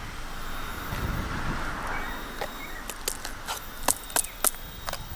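A knife working a spiky durian husk: a soft scraping hiss at first, then a run of sharp clicks and cracks, the loudest three coming quickly about four seconds in as the blade pries the husk open.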